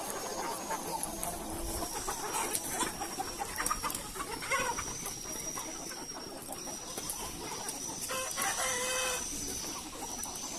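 Chickens clucking, with several short calls overlapping and a longer pitched call about eight seconds in, over a steady high-pitched whine.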